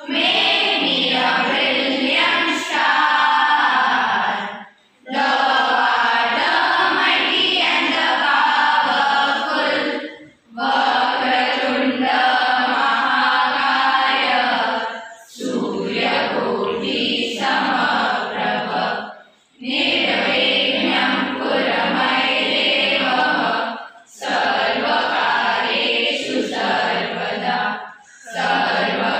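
A group of children singing a prayer together, unaccompanied, in phrases of about four to five seconds separated by short pauses for breath.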